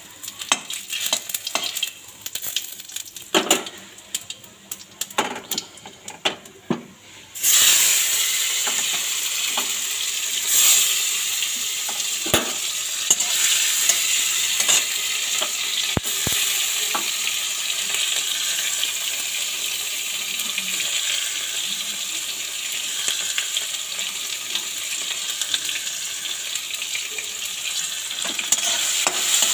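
Frying in hot oil in a metal wok (kadai), stirred and scraped with a metal spatula. For the first several seconds there are only scattered clicks and scrapes. About seven seconds in, a loud sizzle breaks out suddenly as onion and tomato go into the oil, and it stays steady under the stirring.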